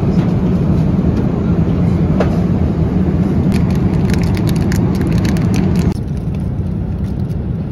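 Steady low engine rumble heard from inside a vehicle, with a run of light rattling clicks in the middle; about six seconds in the sound drops abruptly to a quieter rumble.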